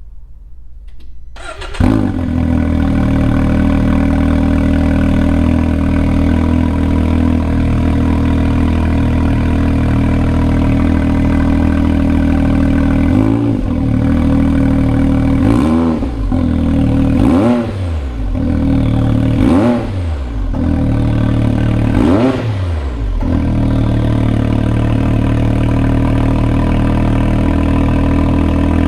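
Can-Am Maverick X3's turbocharged three-cylinder engine, breathing through an Empire Industries rear-exit slip-on exhaust, starts about two seconds in and idles steadily. In the second half it gets about five quick throttle blips, each rising and falling in pitch.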